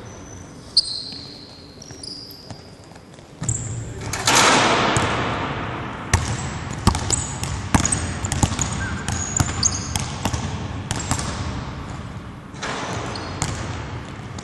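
Basketballs bouncing on a hardwood gym floor, many quick knocks with sneakers squeaking, echoing in a large hall. A louder rush of noise comes about four seconds in.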